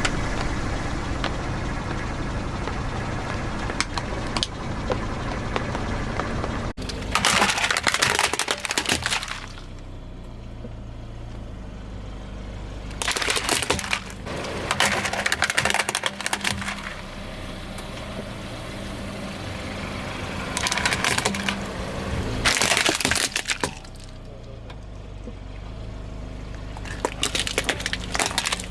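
A car tyre rolling over and crushing crunchy objects, making about six crackling, splintering bursts of a second or two each. The car's engine runs low and steady between them. Before the first burst there are several seconds of steady engine and tyre noise.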